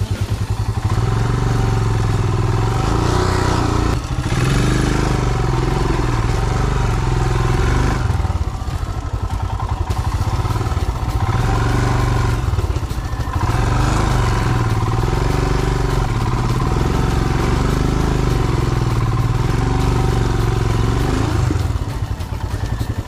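Motorcycle engine running hard, its revs rising and falling again and again as the throttle is worked.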